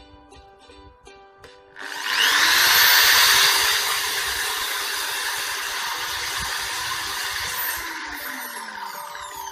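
Electric drill starting about two seconds in with a quickly rising whine, then running steadily at speed as its ballpoint-refill bit bores into a plastic toothbrush handle; near the end the motor winds down with a falling whine.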